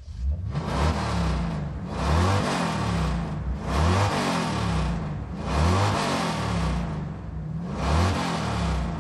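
Car engine revved over and over, its pitch rising and falling about every two seconds.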